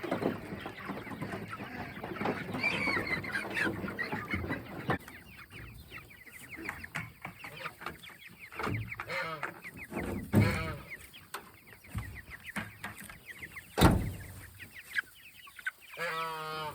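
A flock of Cornish cross meat chickens calling and clucking continuously, with many overlapping short calls. A single sharp knock comes about fourteen seconds in.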